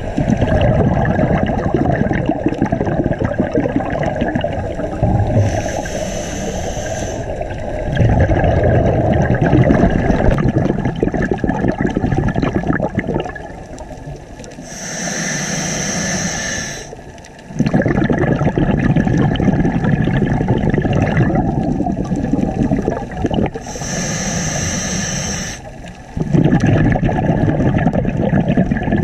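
Scuba diver breathing through a regulator underwater: long rushes of exhaled bubbles, broken three times, about every nine seconds, by a shorter high hiss from the regulator on the inhale.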